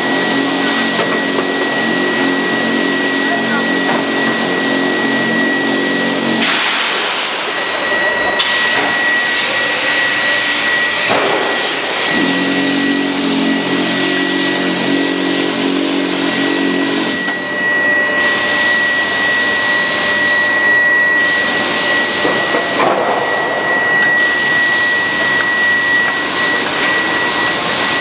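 Grinding ball production line machinery running: a loud, steady mechanical noise with a constant high whine. A lower hum drops out about six seconds in and returns for a few seconds in the middle.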